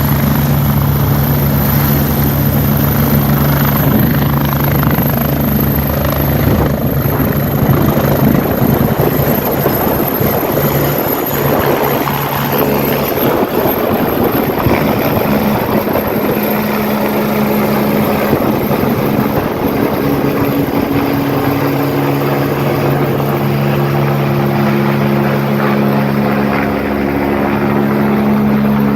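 Medical helicopter running loud and steady: a high turbine whine over the rotor's rapid beat, with a low engine hum that fades in the middle and returns near the end.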